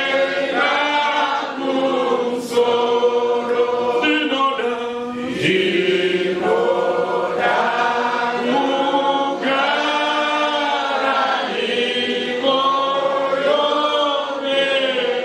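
A congregation singing a hymn together, many voices in unison and harmony, in phrases of held notes that break every second or two.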